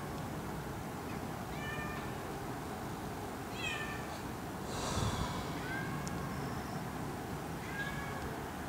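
A cat stuck high in a tree meowing, four short calls about two seconds apart, over a steady low background rumble. A brief hissing noise comes about five seconds in.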